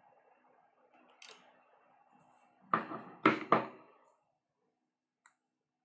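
A man coughing three times in quick succession; he has a sore throat.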